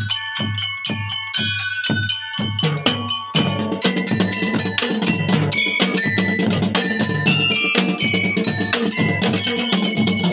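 Drum and lyre band playing: marching bell lyres struck with mallets ring out a melody over a bass drum beat of about two strokes a second. About three seconds in, the drumming fills out into a denser, fuller beat.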